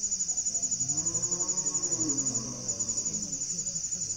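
Crickets chirping in a steady high trill that pulses several times a second. About a second in, a low drawn-out call rises and falls in pitch for over a second.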